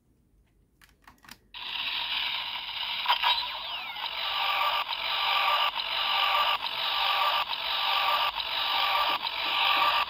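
Blay Buckle toy belt from Kamen Rider Blade playing its electronic standby sound through its small built-in speaker: a loop that repeats about every two-thirds of a second. It starts about a second and a half in, after a couple of soft plastic clicks, and means the belt is armed and waiting for the lever to be pulled.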